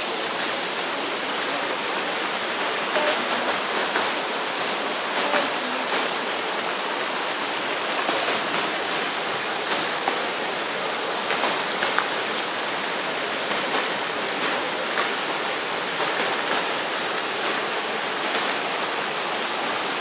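Bigăr waterfall: many thin streams of water falling from a moss-covered rock dome into a fast-flowing river, a steady rushing splash with small spatters through it.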